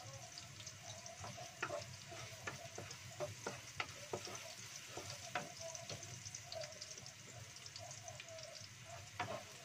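Chopped garlic sizzling in hot oil in a non-stick wok, stirred with a wooden spatula that knocks against the pan at irregular moments. The garlic is being sautéed until fragrant, the first step before the vegetables go in.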